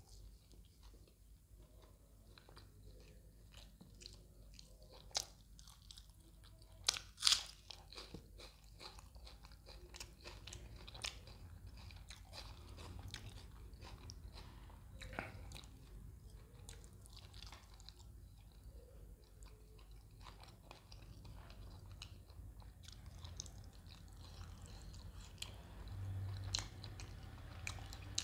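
A person chewing and biting mouthfuls of chapati and fish curry close to the microphone, with wet chewing and a few sharp crunches. The loudest crunches come about five and seven seconds in.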